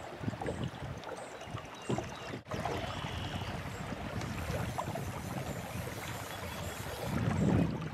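River water flowing, with wind rumbling on the microphone and a stronger gust near the end. The sound drops out briefly about two and a half seconds in.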